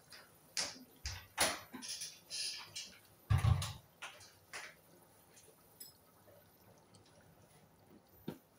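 Thick meat-and-potato curry bubbling under the lid of a steel pot, irregular wet pops and clicks, with a dull thump about three seconds in. A single click near the end as the gas burner knob is turned.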